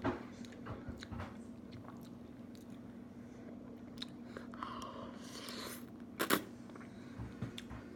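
A person chewing a mouthful of spaghetti and meatballs close to the microphone, with scattered small mouth clicks. A brief hiss comes about five seconds in and a sharper click just after six seconds, over a steady low hum.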